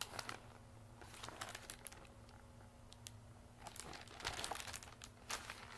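Paper rustling and crinkling as a picture book's pages are handled and shown around, faint and scattered, busier in the second half, over a faint steady low hum.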